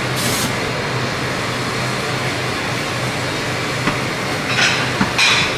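Aerosol can sprayed in short hissing bursts into a charcoal grill's flames to flare them and sear a skewered fish belly: one burst just after the start and two more near the end, over a steady kitchen roar with a low hum.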